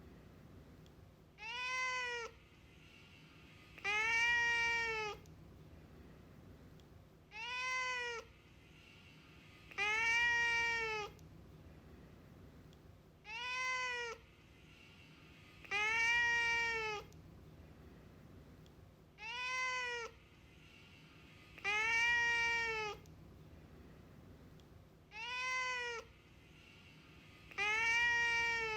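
A cat meowing over and over, about one meow every three seconds, alternating a short meow with a longer one, each rising and then falling in pitch.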